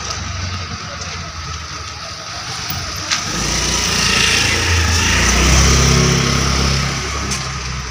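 A motor vehicle drives past on the road: its engine and tyre noise build up over a few seconds, are loudest about six seconds in, then fade away.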